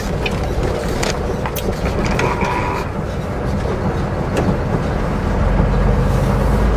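Semi truck's engine and road noise heard from inside the cab while driving, a steady low rumble that grows louder about five seconds in, with a few light clicks.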